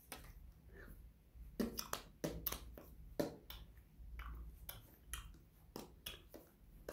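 Scattered soft clicks, taps and brief rustles of hands and fingers touching each other and brushing a sweater, over a faint steady low hum.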